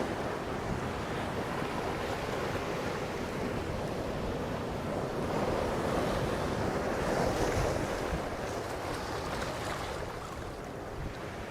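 Sea surf washing onto the shore, with wind on the microphone. The wash swells about halfway through and eases near the end.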